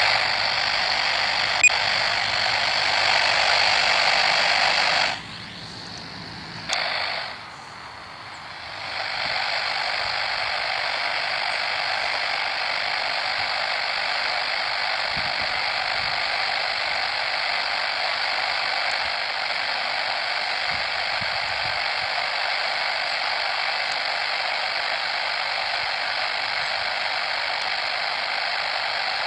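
Steady hiss of static from an airband radio receiver tuned to air traffic control between transmissions. It cuts out about five seconds in and comes back a few seconds later.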